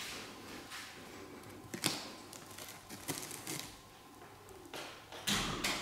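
Scattered light clicks and rustling handling noises, with a sharper knock about two seconds in and a brief burst of rustling near the end.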